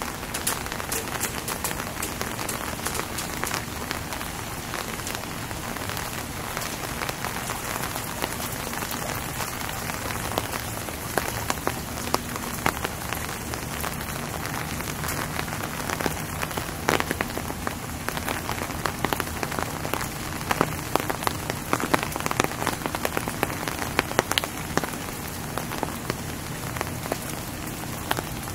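Steady rain falling, an even hiss scattered with many sharp ticks of nearby drops, the ticks growing more frequent about halfway through. A faint low hum runs underneath.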